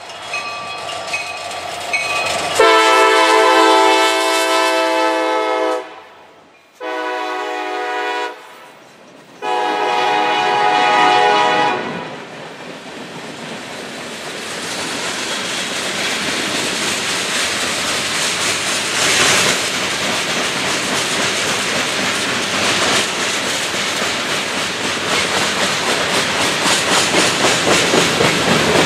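CSX freight train led by an EMD SD70AC sounding its multi-chime air horn in several blasts through the first twelve seconds, the last one long. Then the freight cars roll past with a steady clickety-clack of wheels over the rail joints, growing louder toward the end.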